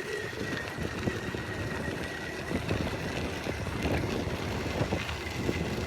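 Wind buffeting the microphone and the rumble of riding a bicycle along a rough country road, with small knocks, while a faint steady high tone fades out about halfway through.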